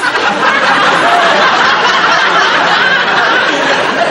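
Audience laughing, loud and sustained.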